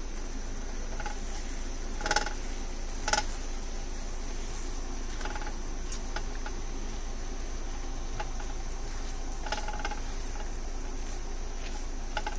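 Diced apples sizzling in bubbling sugar syrup in a nonstick grill pan, a steady hiss. A silicone spatula scrapes and knocks against the pan now and then, loudest about two and three seconds in.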